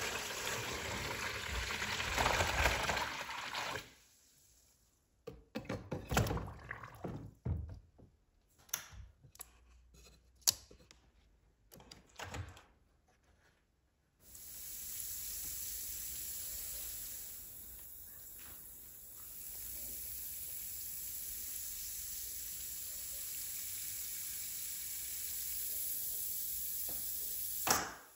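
Water is poured into a plastic tub for about four seconds. Then come scattered clicks and knocks. From about halfway on there is a steady high fizzing hiss from the electrolysis bath, the sign of current running through it and gas bubbling off.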